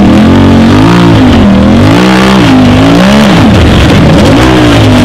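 Side-by-side UTV engine revved hard in repeated bursts while climbing a steep rock ledge, its pitch rising and falling several times.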